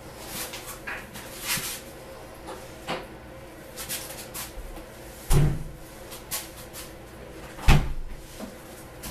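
Scattered knocks and rustles with two heavy thumps, about five and a half and seven and a half seconds in.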